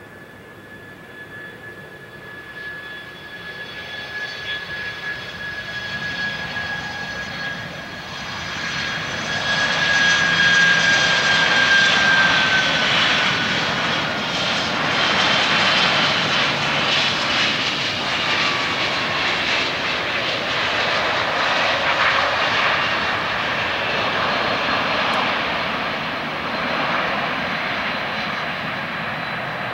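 Boeing 767 jet engines on landing approach, a rushing roar with a high whining tone that grows louder as the airliner closes in. The whine drops in pitch a little before halfway through as the aircraft passes, and a steady engine rush follows.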